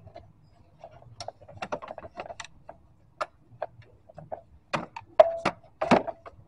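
Irregular light clicks and knocks of parts being handled under the hood of a car, with a few sharper, louder knocks about five to six seconds in.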